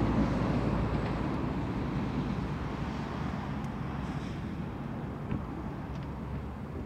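A train running away into the distance, its steady low rumble and hum slowly fading.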